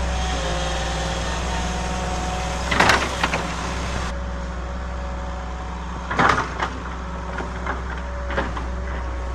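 Excavator engine running steadily, with two loud short bursts of clattering, about three seconds in and again about six seconds in, and a few smaller knocks near the end.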